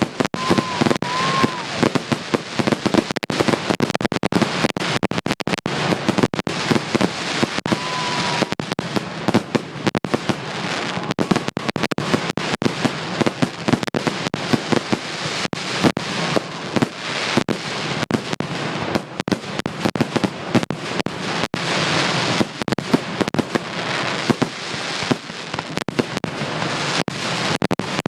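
Fireworks display going off in a dense, continuous barrage of bangs and crackling. A few short whistles come through near the start and again about eight seconds in.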